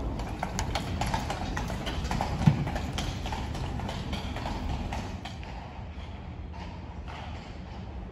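Horse hooves clip-clopping on cobblestones from a horse-drawn carriage, over a low street rumble. One short, louder knock comes about two and a half seconds in, and the sound grows quieter from about five seconds in.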